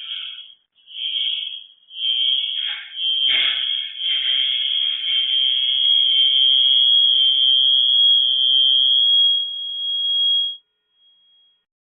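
High-pitched electronic alarm tone: a few short beeps, then one long steady tone lasting about eight seconds that cuts off near the end. A couple of knocks sound about three seconds in.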